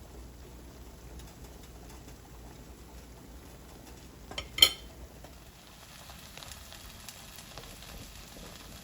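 Just Egg omelet frying in butter in a pan, a soft steady sizzle. One sharp clink about halfway through, the loudest sound.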